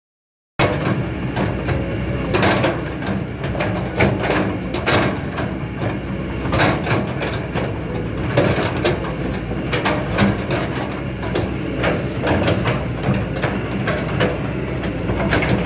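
Kobelco SK200-8 hydraulic excavator's diesel engine running under load as the boom, arm and bucket move and the upper structure swings, cutting in suddenly about half a second in. A steady low engine note runs with frequent irregular sharp clicks and knocks over it.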